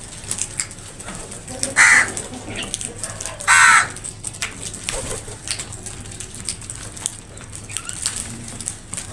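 Crow cawing: two loud, harsh caws, a short one about two seconds in and a longer one about a second and a half later, over scattered small ticks and clicks.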